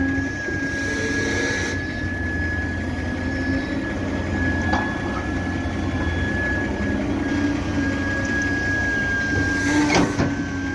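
Cat 320D hydraulic excavator working: a steady diesel engine hum with a thin high whine, and two short knocks, one about halfway through and one near the end.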